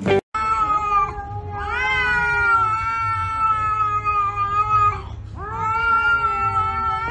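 A cat giving a threat yowl at another cat in a face-off: two long caterwauls with a short break about five seconds in, the first rising in pitch early on before it holds. A short click comes at the very start.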